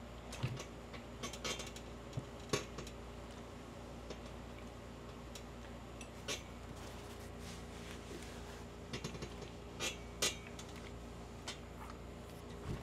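Scattered light clicks, taps and clinks of ironing by hand: the iron and garments being handled and set down on an ironing board, over a faint steady hum.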